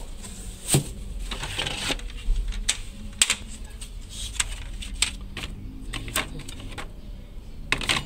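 Unpacking by hand: cardboard packaging and a black plastic fan unit being handled, giving scattered sharp clicks and knocks with short scraping rustles.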